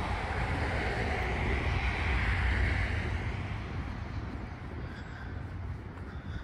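Wind rumbling on the microphone, with a car passing on the road: its tyre noise swells to a peak a few seconds in and fades away.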